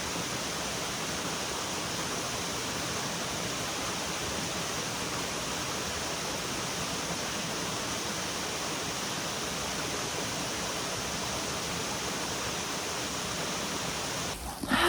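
Steady rush of flowing water from a stream or small waterfall, an even hiss that cuts off suddenly near the end.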